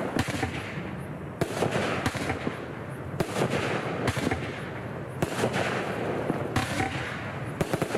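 Black Hat Fireworks 'Jet' standard cake firing: a shot about every one and a half seconds, with crackling between the shots.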